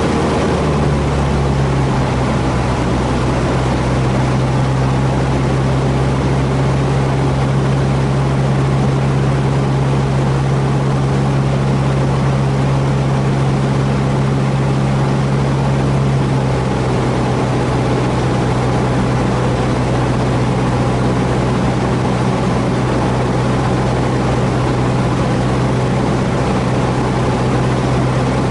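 Cessna 150H's four-cylinder Continental O-200 engine and propeller droning steadily in cruise, heard from inside the cockpit. Its note shifts slightly about a second in and again around sixteen seconds in.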